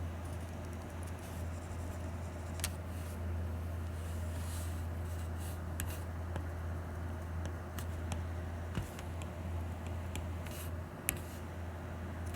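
Stylus tapping and stroking on an iPad's glass screen during sketching: light scratchy strokes and scattered sharp taps, the clearest taps about a quarter of the way in and near the end, over a steady low hum.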